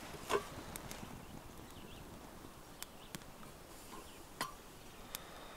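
A handful of short, sharp clicks and knocks, about six spread irregularly, the loudest just after the start and another about four and a half seconds in.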